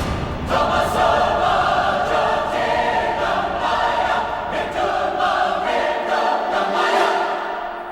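Background music with a choir singing sustained chords, fading out near the end.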